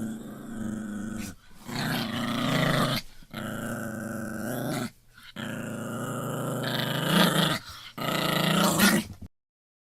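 A dog growling: five long, drawn-out growls with short breaks between them, cutting off suddenly near the end.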